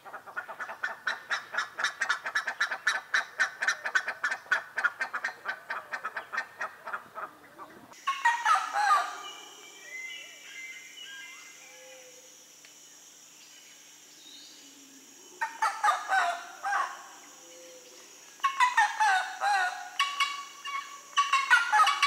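Buff-necked ibises calling: a rapid run of loud honking notes, about five a second, for roughly eight seconds. The sound then changes to a steady high whine with bursts of swooping bird calls.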